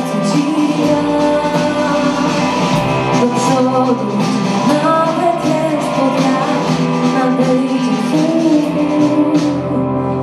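A live rock band playing: electric guitar, bass guitar and drum kit with cymbals, and a woman singing into a microphone. Near the end the drums drop out and the music thins to held notes.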